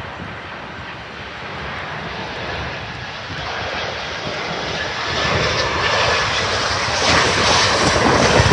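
Jet engines of a Boeing 737 airliner on approach to land, growing steadily louder as it comes closer, with wind rumbling on the microphone.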